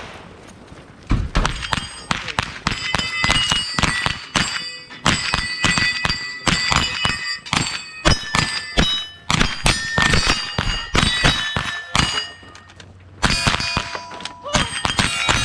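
Rapid rifle fire at steel plate targets: sharp shots come several a second, many followed by the ringing clang of steel plates being hit. There is a short pause about twelve seconds in, then the firing resumes.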